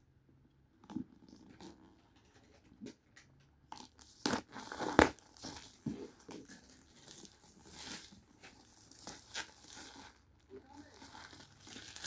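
A cardboard box and its packaging being opened and handled: scattered tearing, crinkling and knocks, the sharpest about five seconds in.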